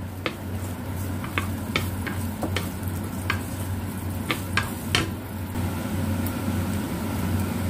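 Chopped shallots and garlic sizzling in oil in a non-stick frying pan, stirred with a wooden spatula that clicks against the pan about eight times in the first five seconds. A low steady hum runs underneath.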